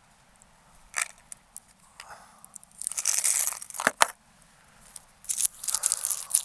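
Rustling, crinkling handling noise in two spells, with a sharp click about a second in and a close pair of knocks about four seconds in.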